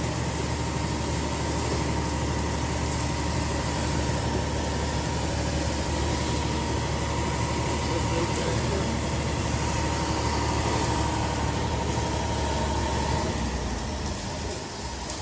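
An engine running steadily at idle, with a constant low hum, growing quieter near the end.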